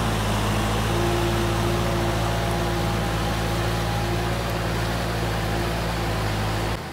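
Tractor diesel engine running steadily under load while its rotary tiller churns through a flooded rice paddy; the sound drops away abruptly near the end.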